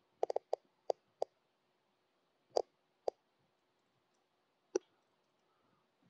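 Short, sharp clicks at irregular intervals: a quick run of about six in the first second and a quarter, then single clicks spaced a second or two apart.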